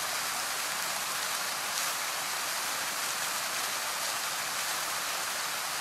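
Fountain jets splashing into a pool, a steady rushing hiss of falling water.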